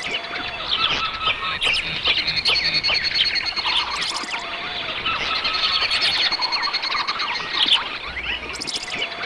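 Dense chorus of many birds chirping, with fast overlapping calls throughout. The same stretch of calls comes round again about every nine seconds, like a looped recording.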